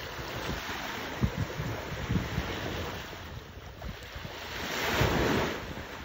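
Sea waves washing, with wind buffeting the microphone in frequent low thumps and a louder rush of wind and water about five seconds in.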